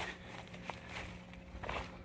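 A few faint footsteps, soft and spaced about a second apart.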